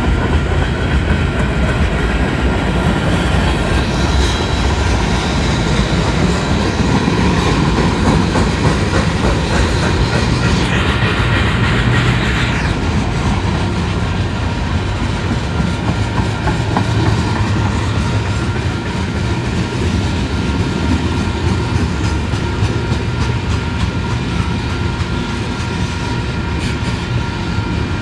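Freight train of boxcars and tank cars rolling past, its steel wheels rumbling steadily over the rails.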